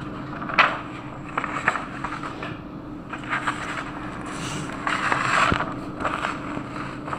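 Irregular scraping and rustling handling noises with a sharp click about half a second in and a longer rustle around five seconds in, over a steady low hum.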